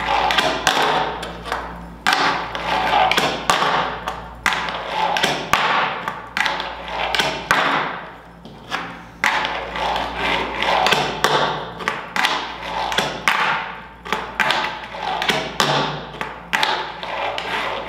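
Wooden Berlinwood fingerboard with metal Blackriver trucks and wheels being popped and flicked on a desk, making repeated sharp clacks and clatters, about one to three a second, as the deck and trucks slap down on the tabletop. These are repeated tre flip attempts that do not land.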